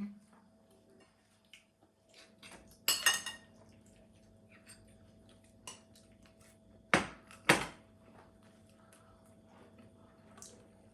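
Cutlery clinking against plates during a meal: a ringing metallic clink about three seconds in, two sharp knocks about half a second apart near the seven-second mark, and light taps in between.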